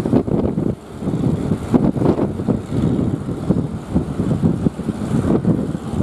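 Wind buffeting the microphone in an uneven low rumble, over the wash of breaking surf.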